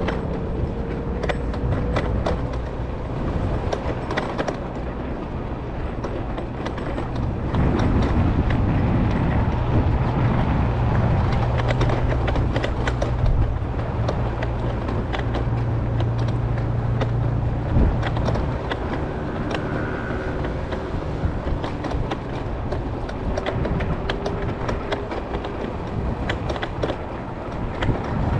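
Electric scooter riding along a paved path: a steady rolling and wind noise with frequent small clicks and rattles as the wheels cross the surface, and a faint steady whine. A deeper hum swells from about 8 seconds in and fades out about 18 seconds in.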